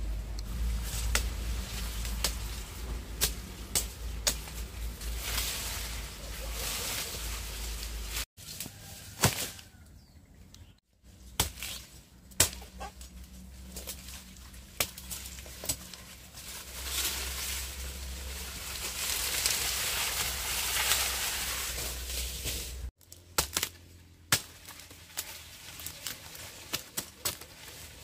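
Machete chopping sugarcane stalks near the ground: irregular sharp chops, with the rustle of cane leaves being pushed aside and falling.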